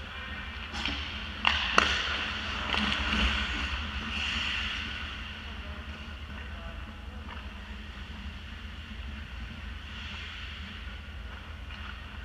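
Ice hockey play: skate blades scraping the ice and two sharp clacks about a second and a half in, over a steady low rumble. The scraping is busiest in the first few seconds, then settles.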